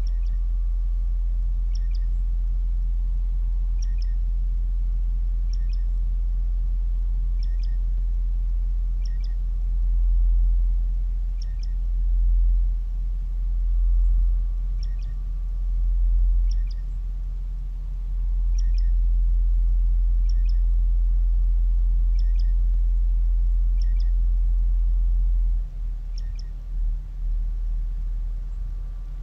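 Live electronic music: a deep sustained bass drone that swells in waves through the middle and falls away unsteadily near the end, with a short high bird-like chirp repeating about every two seconds over it.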